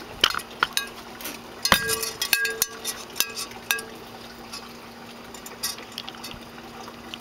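Irregular light metallic clinks and knocks, a dozen or so, several ringing briefly, over a faint steady hum.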